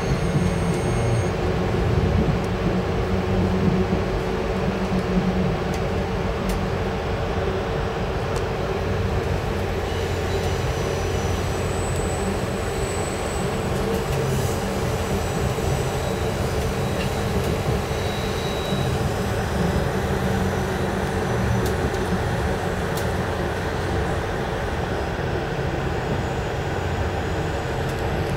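Steady running noise inside a moving MARC commuter train coach: a low rumble of wheels on the rails under a constant hum. A few faint, brief high-pitched squeals come and go midway through.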